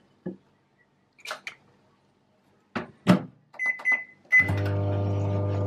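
Samsung microwave oven being loaded and started: a few light clicks as the mould goes in, a loud clack of the door shutting about three seconds in, three short keypad beeps, then the oven starts running with a steady hum from about four and a half seconds.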